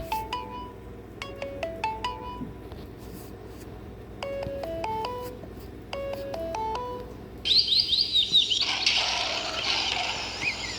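Samsung Galaxy S3 ringtone: a short stepping melody of clear electronic notes, played through, a pause, and played again. About seven and a half seconds in, a different ringtone starts with quick high chirps, then a rushing hiss with chirps over it.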